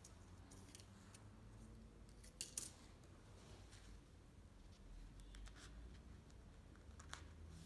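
Near silence with faint handling sounds: fabric rustling and small clicks as straight pins are pushed through a crochet bikini cup into the lining fabric, with a couple of sharper ticks about two and a half seconds in.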